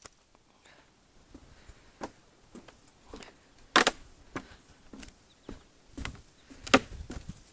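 Footsteps of a person walking on dry leaves and wooden boardwalk planks, a step about every half second, with two louder steps about four seconds in and near the end.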